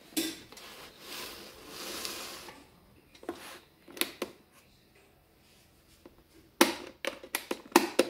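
Handling noise: a brief whoosh in the first couple of seconds, then scattered sharp plastic clicks and knocks, with a quick run of louder ones near the end.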